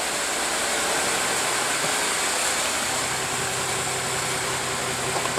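Bus diesel engine idling steadily.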